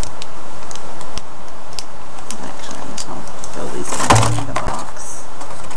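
Sample packets and packaging being handled: scattered small clicks and crinkles, with a louder burst of rustling about four seconds in.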